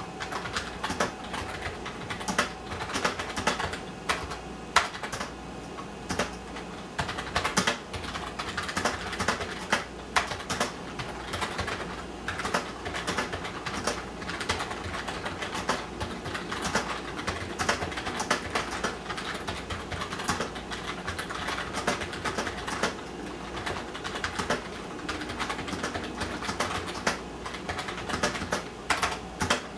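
Typing on the IBM PS/2 Model 25's keyboard: rapid, irregular keystroke clicks that keep going throughout.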